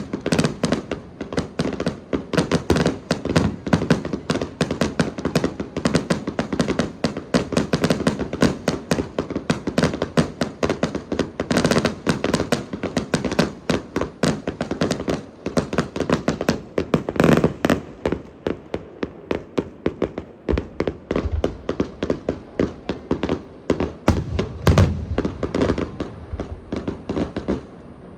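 Fireworks display in a rapid barrage: dense, overlapping bangs and crackles, many a second, thinning out near the end and stopping just before it.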